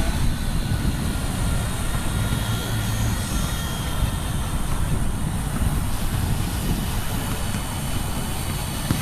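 Skyartec WASP 100 Nano CP micro collective-pitch RC helicopter in flight: a faint thin whine from its motor and rotor over a steady low rumbling noise.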